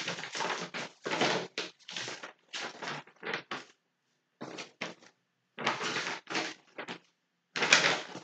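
Paper rustling and scraping in irregular short bursts close to the microphone, like notes being handled or pages turned.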